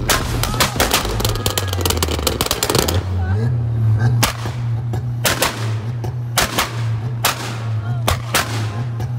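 A car engine held at steady high revs, with repeated loud exhaust bangs and pops: a burst of rapid cracks at first, then single bangs about once a second. Its note steps up a little partway through.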